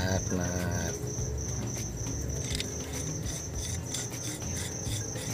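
A cricket chirping in a steady train of high chirps, with a few light clicks from metal steering rack parts being handled.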